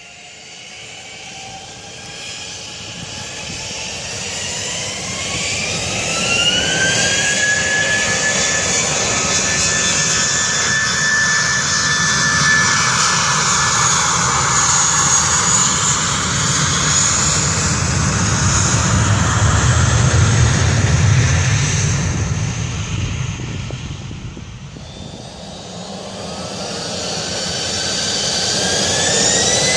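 Airbus A320's IAE V2527-A5 turbofan engines spooling up for takeoff: a rising whine climbs over the first several seconds into a steady loud jet roar with deep rumble. After a short dip about 25 seconds in, a jet engine whine rises again near the end.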